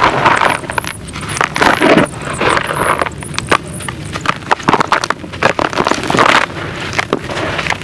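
Gritty sand-cement being crumbled and mixed: an uneven run of crunching crackles and sharp clicks.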